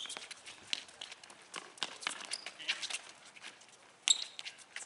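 Sneakers scuffing and stepping on a concrete court, with scattered light touches on a soccer ball and a few brief shoe squeaks. A louder, sharp knock of a kicked ball comes about four seconds in.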